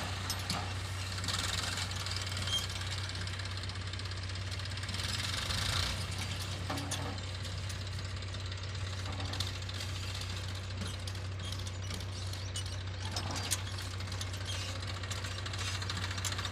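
Diesel engine of heavy earthmoving machinery running steadily with a low hum, with a few faint clicks over it.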